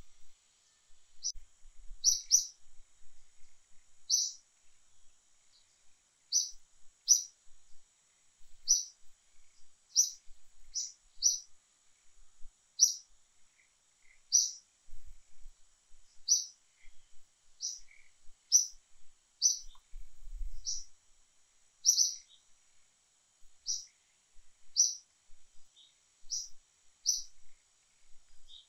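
A bird's short, high chirps, repeated every second or so, over a faint steady high hiss.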